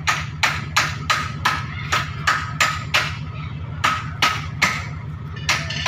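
Rapid hammer blows on the lorry's tailgate, about three a second, each with a short metallic ring, with a brief pause a little past three seconds in, over a steady low hum.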